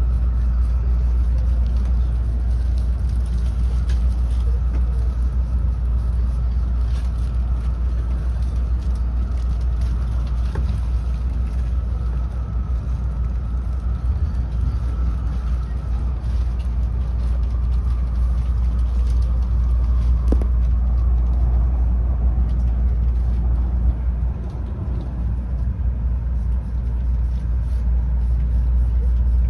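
Steady cabin noise inside a Tokaido Shinkansen train on the move: a deep, even rumble with a faint whine above it and occasional light clicks.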